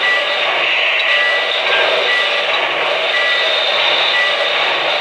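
O-gauge model steam train running on three-rail track, a steady loud rush and rumble of wheels and sound-system steam effects, with short high-pitched tones coming and going.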